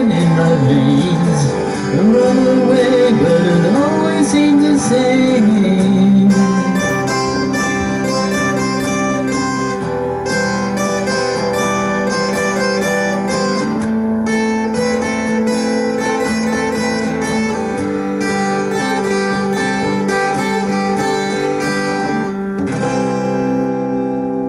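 Two acoustic guitars playing the closing instrumental of a song. For the first several seconds a bending, gliding melody line runs over the chords, then steady strumming takes over. The playing ends on a ringing chord near the end.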